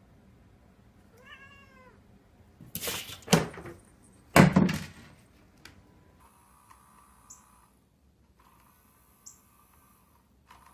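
A cat gives a short wavering meow, followed by two loud, harsh sounds about a second and a half apart. After that, a battery-powered spinning feather-wand cat toy whirs in spurts of about a second and a half, stopping and starting again.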